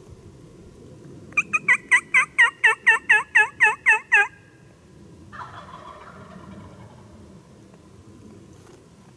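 Hen-turkey yelps from a diaphragm mouth call: a fast, even run of about a dozen loud two-toned yelps, each breaking from high to low, lasting about three seconds. A fainter, rougher sound follows about five seconds in.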